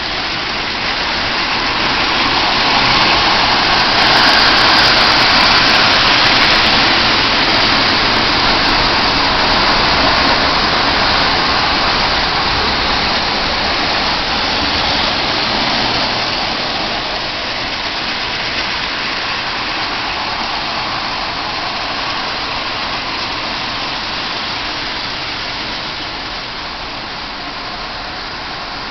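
Marx Commodore Vanderbilt toy locomotives, wind-ups converted to electric Marx 400 and 490 motors, running on the track pulling litho cars. The motors whir and the wheels rattle in a steady noisy clatter, which swells a few seconds in and then slowly eases.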